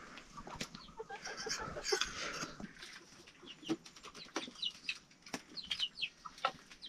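Chickens clucking, with short chirping calls and scattered sharp clicks or knocks.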